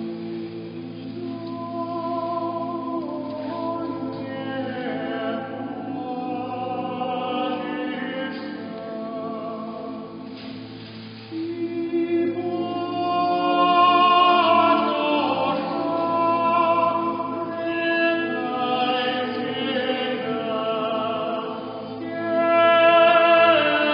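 Small choir of monks singing Orthodox chant unaccompanied. Sustained chords sit over a steady low held bass note, and the singing grows louder about halfway through.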